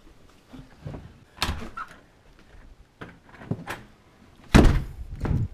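A door being opened and shut, with several knocks and thuds; the loudest, a door banging shut, comes near the end.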